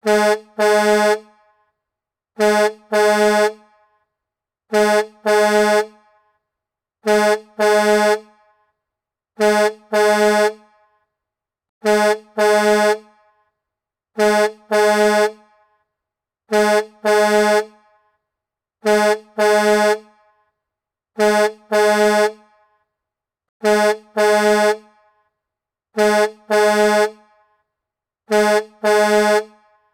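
Truck horn giving two quick honks on one steady pitch, the second a little longer than the first, the pair repeating every two and a half seconds or so, thirteen times over.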